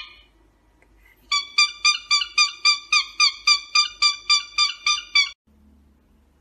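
Cockatiel giving a fast run of short, identical whistled chirps, about three to four a second. The calls pause for about a second near the start, resume, and cut off suddenly about five seconds in.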